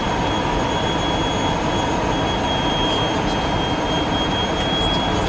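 Steady cabin roar of an airliner in flight, engine and airflow noise, with a thin steady high whine.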